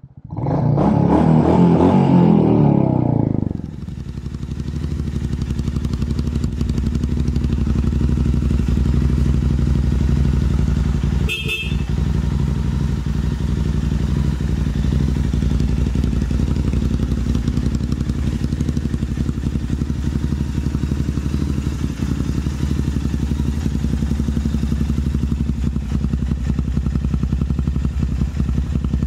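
Royal Enfield 350 single-cylinder motorcycle engine: a louder rush of engine noise for the first three seconds or so, then a steady, even idle. There is one short click about eleven seconds in.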